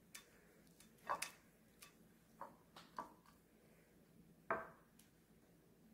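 Faint, scattered light clicks and taps of a silicone basting brush against a small ceramic bowl and the lobster tails while basting them with garlic-Parmesan butter, the loudest tap about four and a half seconds in.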